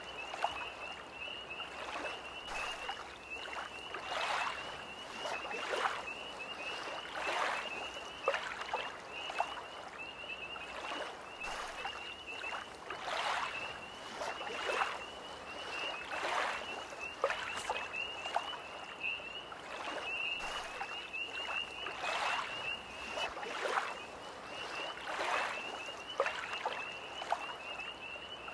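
Small lake waves lapping and splashing at the shore about once a second, over a continuous high, pulsing trill of tree frogs.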